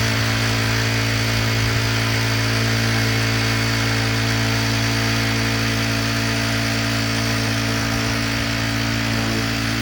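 A small engine-driven machine running loud and steady at a constant speed, with a low, even hum and a hiss.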